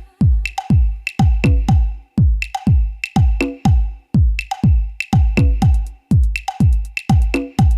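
A Huawei EMUI 12 phone ringtone playing: an electronic beat with a heavy kick drum, sharp clicks and a held synth note, with short chords coming back about once a second.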